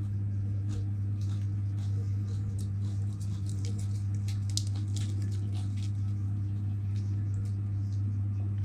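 Close chewing and crunching of crisp raw lettuce leaves, many small irregular crackles that are thickest through the middle, with the leaves being torn by hand. A steady low electrical hum runs underneath.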